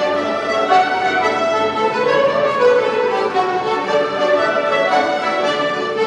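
A large group ensemble of fiddles, accordions and flutes playing a jig together.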